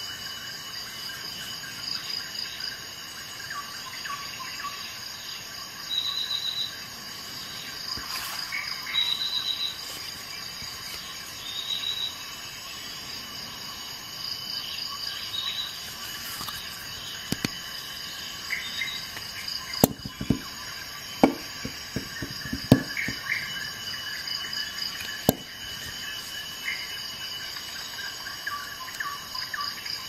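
Insect-like chirping in short trilled bursts that recur every few seconds over a steady high hum. About twenty seconds in there is a quick cluster of sharp clicks as the black Leatherman Charge Plus multitool is handled and opened.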